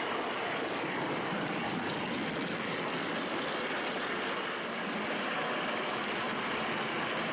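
Model train running, heard from on board: a steady whir of its motor and wheels rolling on the track.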